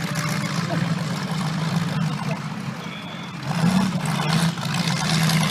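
Demolition derby cars' engines running steadily, growing louder about three and a half seconds in, with one short high beep a little before.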